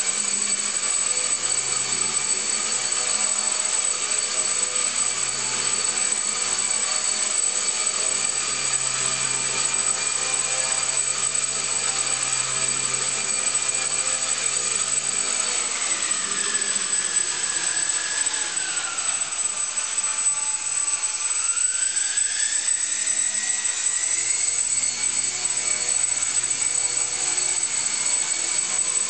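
Brushless motor driving a small RC airplane propeller: a steady high whine. About halfway through its pitch drops in two steps as the motor slows, then climbs back to the earlier pitch a few seconds later.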